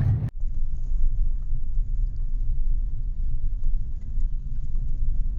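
Kia Picanto driving on a gravel road: a steady low road rumble with faint scattered ticks, which starts abruptly a moment in.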